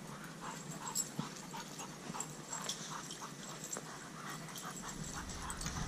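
A dog panting in short, soft breaths, about two or three a second.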